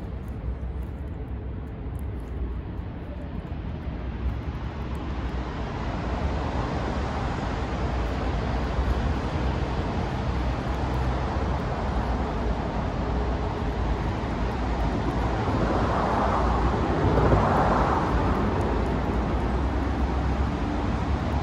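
Steady rumble of distant engine noise that slowly grows louder, peaking about three-quarters of the way through.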